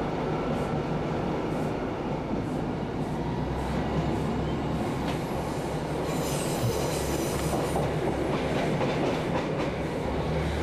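Interior running noise of a Class 150 diesel multiple unit at speed: a steady drone from its underfloor diesel engine and rumble of wheels on rail, with light clicks from rail joints about once a second. A brief high-pitched wheel squeal comes about six seconds in.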